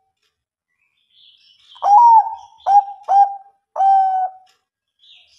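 Bangkok-strain zebra dove (perkutut) cooing its song: four short coos starting about two seconds in, the first bending down in pitch and the last held longest.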